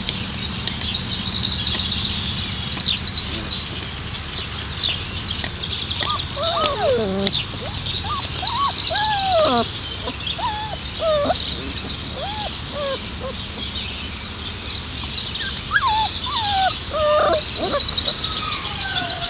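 Four-week-old Alaskan Malamute puppies whining and yipping as they play-fight, in short cries that bend up and down in pitch. They come in two spells, the first about six seconds in and the second near the end.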